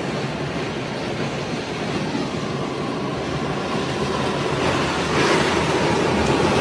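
Strong storm wind buffeting the microphone as a steady rumbling roar, growing louder about five seconds in.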